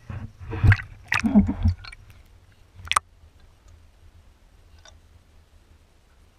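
Water splashing and gurgling around a camera as it is dipped below the river surface, in a few loud bursts over the first two seconds. A sharp click comes about three seconds in, then only a faint, muffled low rumble underwater.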